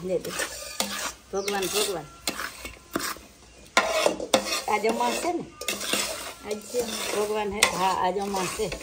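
A metal spoon stirring and scraping a thick, grainy adadiya mixture in a large aluminium pot, with repeated scrapes and clinks against the pot's sides.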